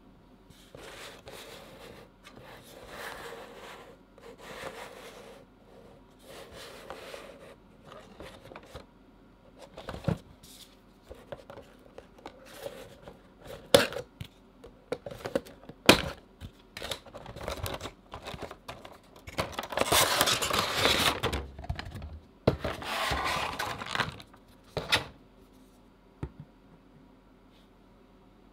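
Hands opening a cardboard Funko Pop box and pulling out its plastic insert: rustling, scraping and a few sharp taps of card and plastic, loudest in two long stretches of scraping and rustling in the second half, then near quiet at the end.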